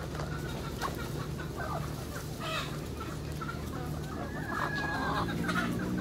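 A flock of free-range chickens clucking and calling while they are fed, with one longer call about four and a half seconds in. A steady low hum runs underneath.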